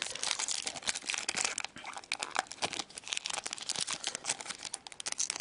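Foil wrapper of an Upper Deck Artifacts hockey-card pack being torn open and crinkled in the hands: a dense, irregular crackling.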